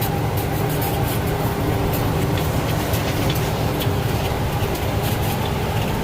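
Farm tractor engine running steadily under load, heard from inside the cab while it pulls a grain cart across a rough field, with scattered light rattles and clicks.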